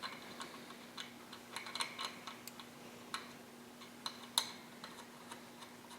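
Scattered light clicks and taps of small metal parts being handled at a workbench, irregularly spaced, with one sharper click near the end, over a faint steady hum.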